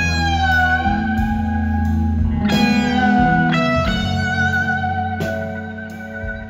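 Live rock band playing an instrumental jam: an electric guitar holds long lead notes that bend and waver, over a steady bass.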